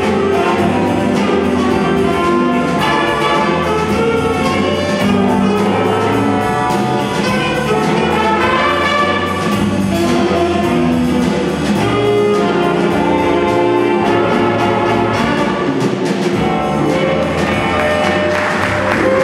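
Jazz big band playing live: trumpets, trombones and saxophones in full ensemble over a steady drum-kit beat.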